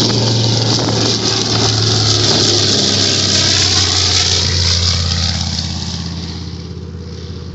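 TBM-3E Avenger's Wright R-2600 fourteen-cylinder radial engine and propeller passing in a low flyby. The loud engine note drops in pitch about four to five seconds in as the plane goes by, then fades away.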